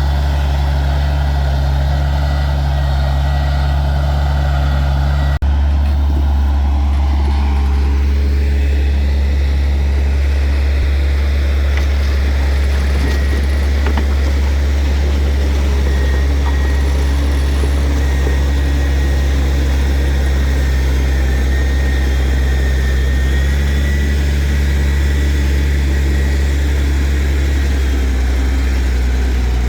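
Heavy diesel earthmoving machinery running steadily with a deep drone. The sound changes abruptly about five seconds in.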